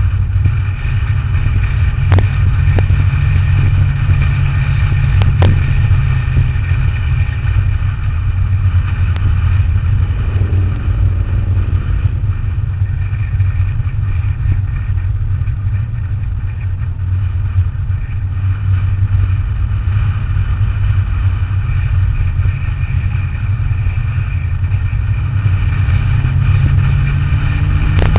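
Sports car being driven with a steady low engine drone and road noise. Two sharp ticks come in the first six seconds, and the engine pitch rises near the end.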